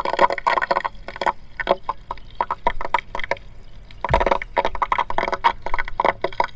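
Solar electric fence energiser crackling irregularly, like electrical arcing, with a denser burst about four seconds in. The owner takes it for arcing and shorting inside the unit.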